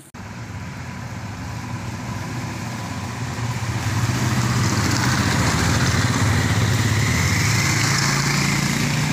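Motorcycle engines running as bikes ride by, the engine note growing louder from about three seconds in and then holding, with a steady hiss over it.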